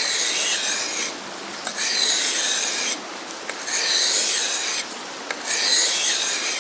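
Becker BK7 knife blade drawn across a water-wetted sharpening stone: four long scraping strokes, each about a second, with short pauses between.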